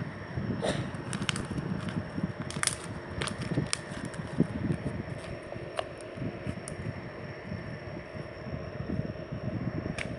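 Hands squishing and stretching a plain glue-and-water slime: a continuous wet squelching with scattered sharp little pops and clicks, most of them in the first half.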